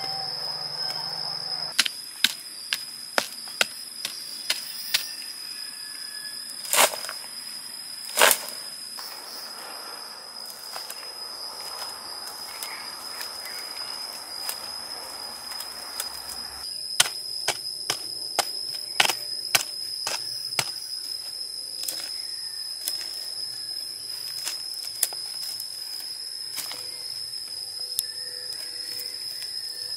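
Insects drone in a steady high tone throughout. Over it come sharp clicks and knocks from hand digging and moving soil: a cluster in the first few seconds, two louder scrapes about seven and eight seconds in, and another run of clicks from about seventeen seconds on.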